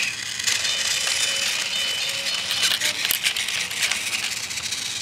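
Battery-powered Thomas & Friends Trackmaster toy engine running on plastic track: a faint high motor whine over a steady rattle of the wheels, with a few sharp plastic clicks around the middle.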